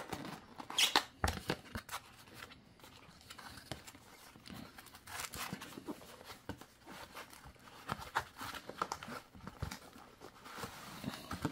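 Hands opening a paperboard product box: the end flap is pulled open and the foam-packed contents slid out, giving scattered rustles, scrapes and light taps, with a sharper rustle about a second in.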